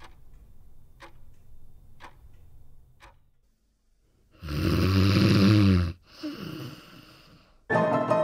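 A clock ticking once a second, four ticks, then a loud snore and a softer second snore.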